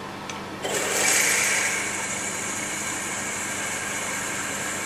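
Twist drill in a milling machine spindle cutting into SG (ductile) cast iron. The cutting noise starts about half a second in and then runs steadily over the machine's low hum.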